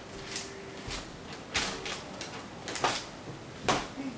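A TV/VCR combo's tape mechanism taking in a VHS cassette: four short mechanical clunks and clicks about a second apart as the tape is loaded and threaded and playback starts.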